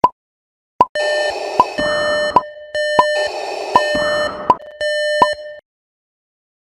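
An electronic device's alarm beeping: a short beep about every three-quarters of a second over a repeating pattern of steady electronic tones and noisier bursts. It cuts off suddenly about five and a half seconds in.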